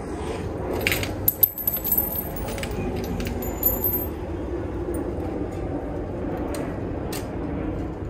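Clicks and metallic clinks from the jammed token mechanism of a self-serve car wash coin box being worked by hand. The sharpest clinks, with a brief metallic ring, come about a second and a half in, over a steady low rumble.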